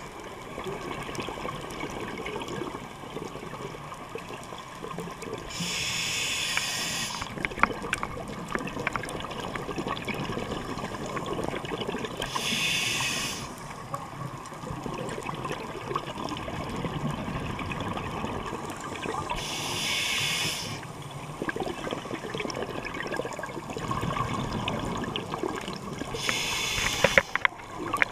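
Scuba diver breathing through a regulator underwater: a burst of exhaled bubbles about every seven seconds, four times, over a steady muffled underwater rush.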